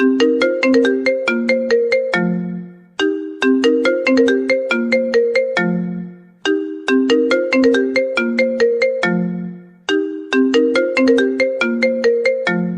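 iPhone ringtone playing: a short melody of quick, sharply struck notes that ends on a held low note, repeating about every three and a half seconds.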